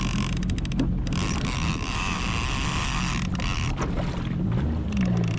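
Jet ski engine idling with a steady low hum, wind buffeting the microphone, and a quick run of clicks from the fishing reel about half a second in while a big fish is fought on the rod.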